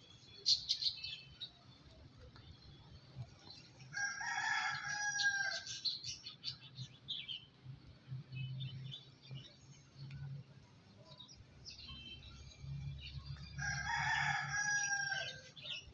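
A bird's long call, heard twice, each about two seconds, with short chirps from small birds in between.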